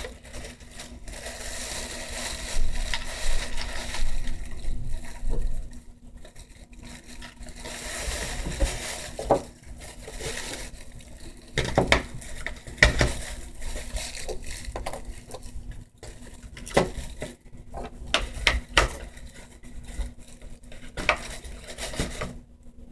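Small hard pieces of an acrylic nail kit being handled: rustling at first, then a run of sharp clicks and clinks as items are picked up, tapped and set down.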